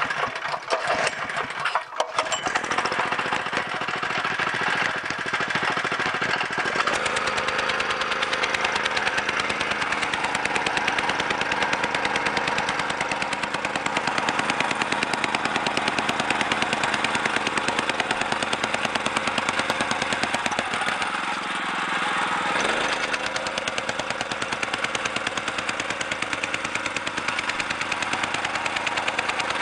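Vibratory rammer (jumping-jack tamper) with a small petrol engine running just after a warm start with the choke closed. About a quarter of the way in the throttle opens and the foot pounds crushed granite gravel in a fast, even rhythm. It slows briefly with falling pitch about two-thirds through, then picks up again.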